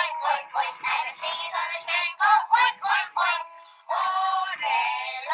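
A sung electronic tune from the Peppa Pig Grandpa Pig's train toy's small built-in speaker: thin and tinny with no bass, pausing briefly a little before four seconds in.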